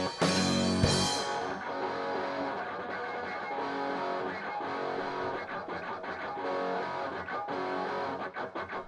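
Rock music: the full band with drums and cymbals hits for about the first second, then drops out, leaving an electric guitar playing a riff alone.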